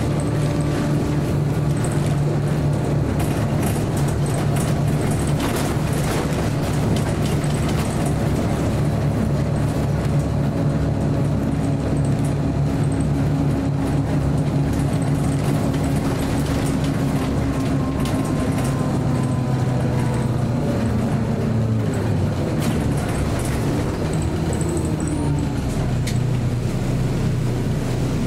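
Scania L94UB city bus with a Cummins ISB diesel running under way, heard from inside the cabin with steady engine drone and interior rattles. About twenty seconds in the engine note falls away, then rises again as the bus pulls on.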